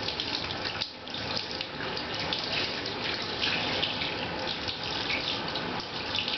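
Water from a handheld shower sprayer running steadily onto a small dog's wet coat in a bathtub while it is rinsed, a constant splashing hiss that dips briefly just under a second in.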